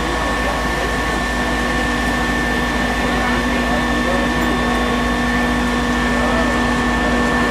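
Fire brigade aerial platform truck running, a steady machine drone with a constant whine as the boom moves the basket; a deeper steady tone comes in about a second in. Faint voices underneath.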